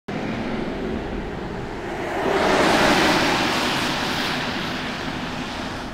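A pickup truck passing on a wet road: the hiss of its tyres on the wet pavement swells to its loudest about three seconds in, then fades as it drives away.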